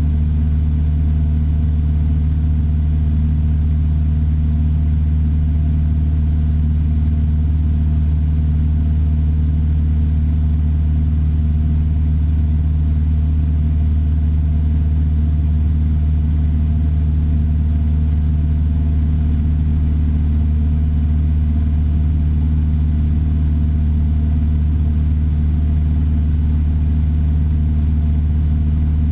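Single-engine Piper Warrior III's four-cylinder Lycoming engine and propeller running steadily at constant power, a low, even hum that does not change.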